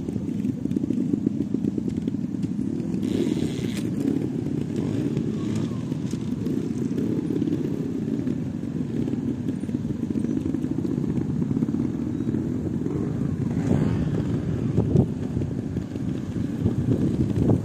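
Several trials motorcycle engines running near idle together, with short revs now and then as riders move up to the section.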